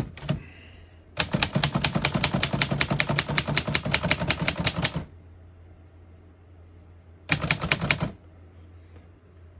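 1924 Underwood 3-bank portable typewriter being typed: a rapid run of key-and-typebar clacks lasting about four seconds, then a second short burst of keystrokes near the end.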